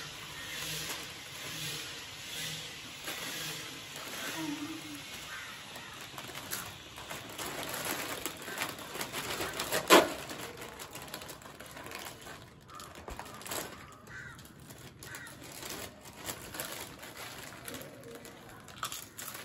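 Lay's chip packets crinkling and being handled, with chips being crunched. A single loud, sharp crackle of a packet comes about ten seconds in.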